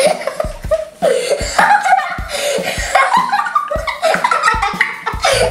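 Two young girls laughing and giggling together in short bursts, with several low thuds among the laughs.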